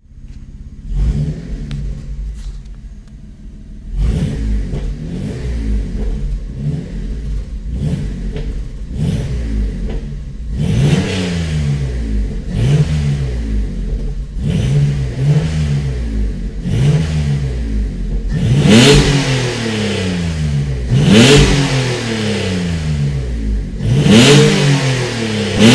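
Peugeot 406 Coupé V6 with its catalytic converter removed and a full SuperSprint exhaust, being revved while stationary. The throttle is blipped over and over, each rev rising and falling in pitch about every two seconds. The blips grow louder and raspier from about two-thirds of the way through.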